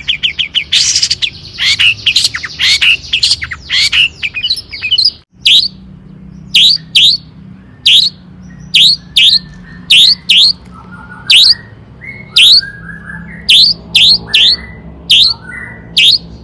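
Long-tailed shrike (cendet) singing: a fast, dense chattering run for the first five seconds, then, after a brief break, a string of sharp single 'toet' notes, about one or two a second.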